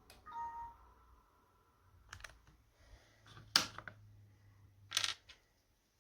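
A short electronic tone of a few pitches, then a handful of sharp clicks, the loudest about three and a half seconds in.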